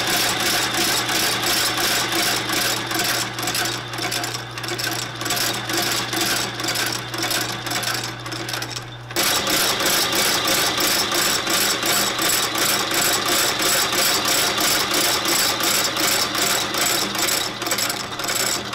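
Sole stitching machine running, stitching a midsole onto a welted boot: a fast, even clatter of stitches over a steady motor hum. It eases off briefly about nine seconds in, then runs on at full pace.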